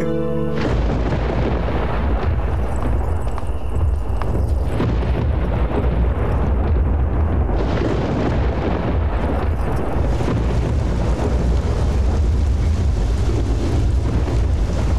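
Heavy rain suddenly pouring down about a second in, a dense steady hiss over a deep low rumble.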